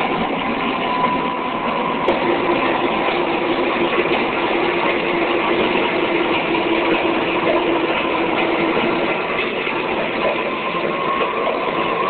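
Live experimental noise performance: a dense, steady, rumbling wash of amplified rubbing on a crinkled foil-like surface mixed with synthesizer, with a faint held low tone through the middle.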